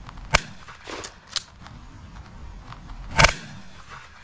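Two shots from a Winchester SXP pump-action 12-gauge shotgun, about three seconds apart, with two lighter clacks between them as the pump slide is worked back and forward to chamber the next shell.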